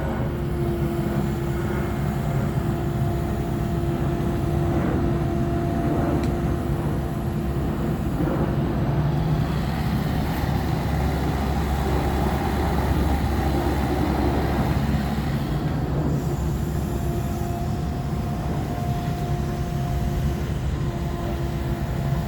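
Kubota mini excavator's diesel engine running steadily under work, with a steady whine over the rumble; it grows louder and busier for a few seconds about halfway through.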